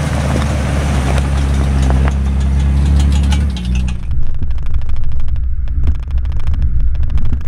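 Jeep Wrangler engine running under way on a dirt trail, a steady low drone. About four seconds in the sound changes to a muffled, uneven rumble with road jolts, heard from on the Jeep's hood.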